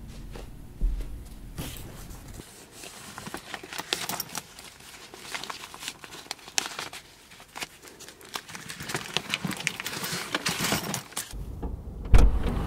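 Irregular crinkling and rustling handling noise, a dense run of small crackles and clicks. Near the end comes a sharp thump and then a low rumble.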